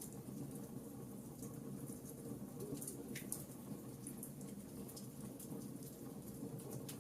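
Wood fire crackling in a fireplace: scattered sharp pops and ticks over a low, steady rumble, with a more prominent crackle about three seconds in.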